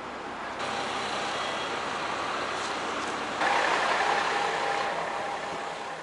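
Road traffic noise from buses at a bus terminus and roadside, a double-decker bus's engine running close by. The noise is steady, stepping louder about three and a half seconds in, with a faint steady whine over it.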